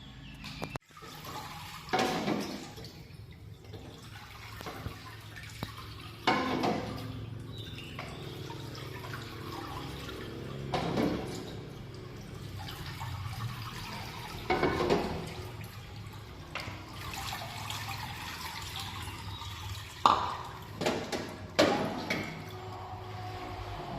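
Water running and splashing in a series of short surges every few seconds, over a low steady hum.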